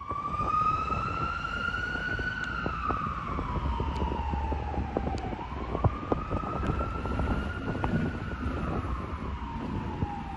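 An emergency vehicle siren wailing in a slow rise and fall, about one full cycle every five seconds, over a low steady wind rumble on the microphone with scattered small clicks.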